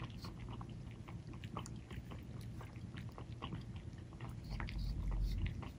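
Two kittens lapping milk from plastic bowls: quick wet tongue clicks, several a second, in an uneven patter. A deep low rumble lasts about a second near the end.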